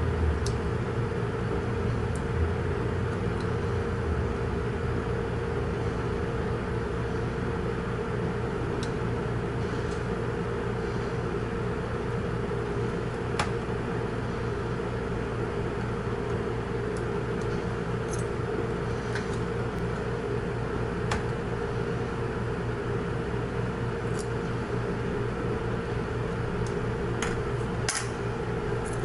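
Steady mechanical hum, like a small fan or motor, under light scattered clicks and taps of the soldering iron and small metal parts while a buzzer speaker is desoldered from its bracket; the clicks come closer together near the end as the speaker comes free.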